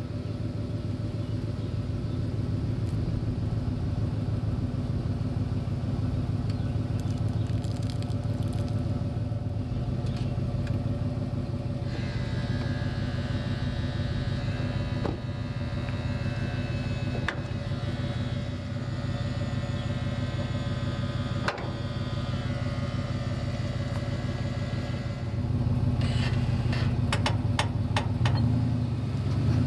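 A Ram pickup truck's engine running steadily at low speed while the truck backs up to a dump trailer's hitch. Near the end comes a run of sharp clicks.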